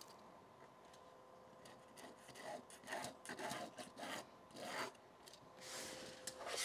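Tip of a heat-erasable friction marker pen scratching across quilt fabric along the edge of a quilting ruler, drawing a marking line: a quiet start, then a run of short scraping strokes from about two seconds in, and a longer stroke near the end.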